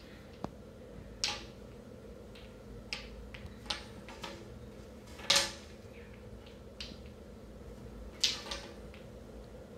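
Wooden stacking blocks from a Block & Block balancing game being picked up and set down on a hard tabletop and against each other: about a dozen scattered sharp clacks, the loudest a little past halfway and another near the end.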